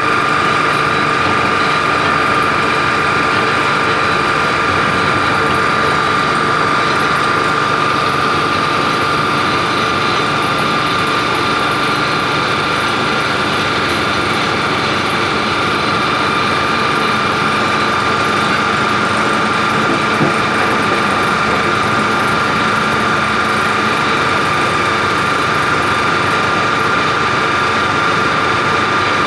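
A mine water pump set running steadily close by: a constant mechanical drone with a high whine over it and no change in level.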